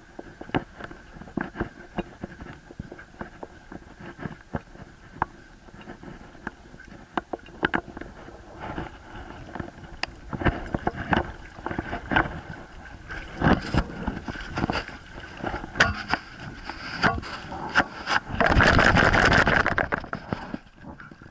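Irregular knocks and scrapes on an action camera strapped to a dog as the dog moves, with a dense burst of loud rattling noise near the end.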